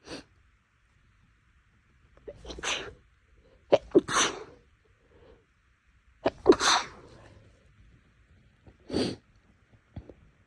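A person sneezing over and over, about four sneezes a couple of seconds apart, some with a sharp catch of breath just before.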